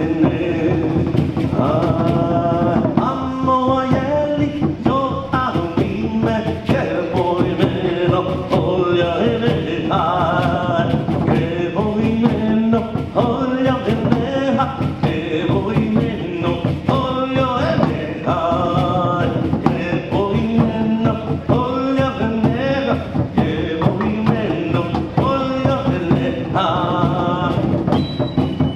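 Live pre-Hispanic Mexican-style music: a chanted vocal line sung over dense, steady drum beats.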